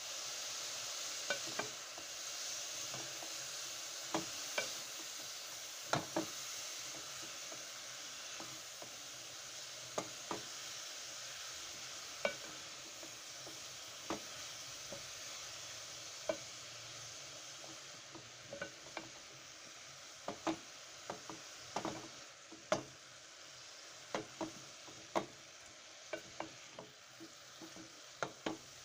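Shredded cabbage and grated carrots sizzling in a metal pot while a cooking spoon stirs them, knocking and scraping against the pot. The sizzle slowly fades, and the knocks come more often toward the end.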